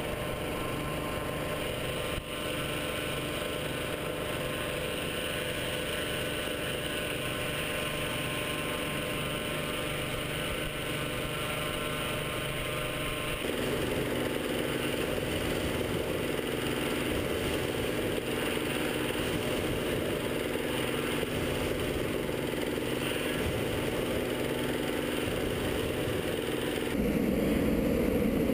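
Petrol-engined inflator fan running steadily, blowing air into a hot air balloon envelope during cold inflation; its note changes about halfway through. Near the end a louder rushing sound joins it as the propane burner fires into the envelope.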